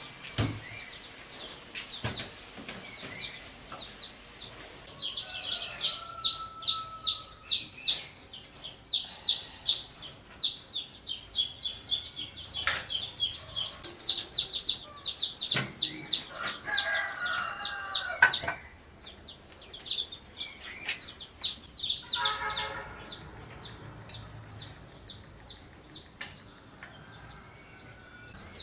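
Chickens clucking and calling, with long runs of rapid high chirps broken by a pause around the middle and a few lower calls.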